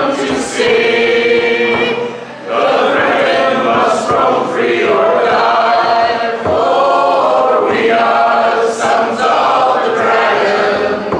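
Two women and a man singing together unaccompanied, a cappella, in long sung phrases with a brief break for breath about two seconds in.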